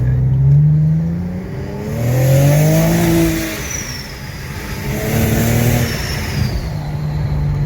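A V8 car engine revving in three rising sweeps, then holding a steady note near the end.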